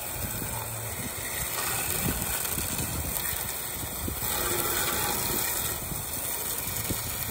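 Garden hose spray nozzle spraying water steadily onto a truck grille, rinsing off the degreaser.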